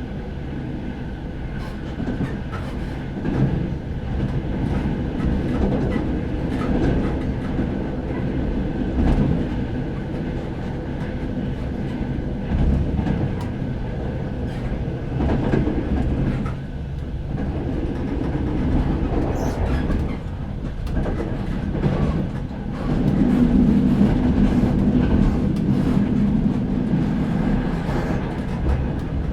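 A train running on rails: a continuous low rumble with scattered sharp clicks, growing louder about three quarters of the way through.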